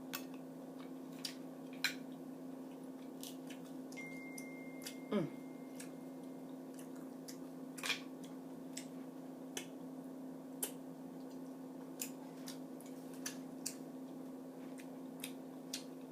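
Close-up chewing: wet mouth clicks and smacks of a person eating mussels, scattered about once a second, over a steady low hum. A short "mm" of enjoyment about five seconds in.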